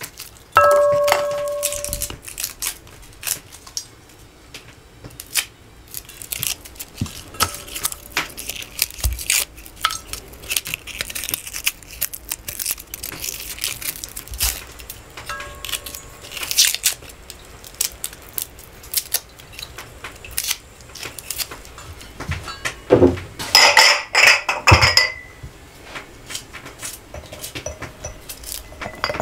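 A small knife peeling garlic cloves: dry skins scraping and tearing, with the blade and cloves tapping and clinking against a stainless steel bowl. The bowl rings briefly near the start, and a louder run of clattering comes about three quarters of the way through.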